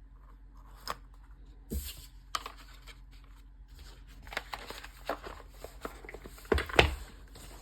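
Rustling of packaging with scattered small clicks and knocks as wristwatches are handled and unwrapped, the loudest cluster near the end.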